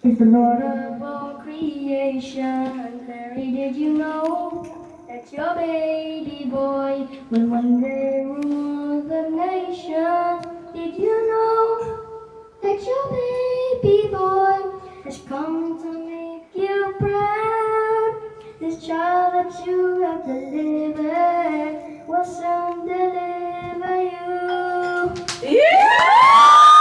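A child singing a song through a handheld microphone. About a second before the end the singing gives way to loud cheering and whoops.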